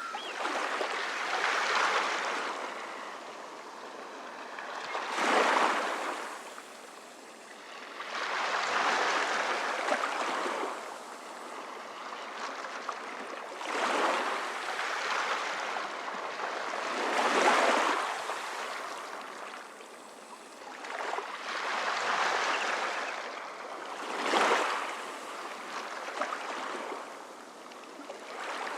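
Calm sea: small waves washing in, a soft hiss that swells and ebbs about seven times, one wave every few seconds.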